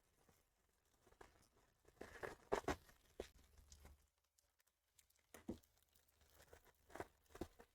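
Faint crinkling and tearing of trading-card pack wrappers with small handling clicks, in short bursts about two seconds in, again past five seconds and near the end.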